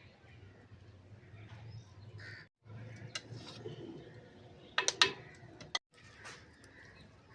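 A few sharp clicks and knocks of kitchen utensils, the loudest cluster about five seconds in, over a low steady hum with birds calling in the background.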